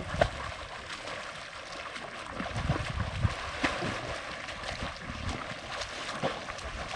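Water splashing and lapping as people swim in a dam, with scattered short splashes.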